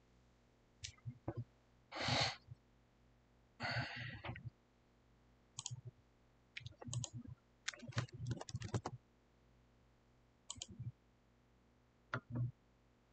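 Scattered faint clicks and taps of a computer mouse and keyboard picked up by a desk microphone, with a quick run of keystroke-like clicks about eight seconds in. Two short breathy puffs come near the start, over a faint low electrical hum.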